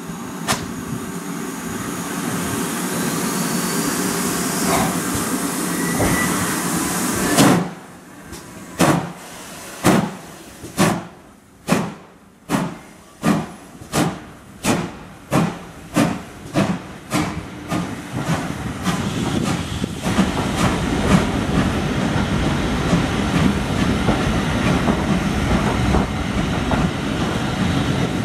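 GWR 'Modified Hall' 4-6-0 No. 6989 Wightwick Hall, a two-cylinder steam locomotive, starting a train. First a steady hiss of steam for several seconds, ending sharply. Then heavy exhaust beats quicken from about one a second to a faster chuffing as it gets away, and finally give way to the continuous rumble and clatter of the coaches rolling past.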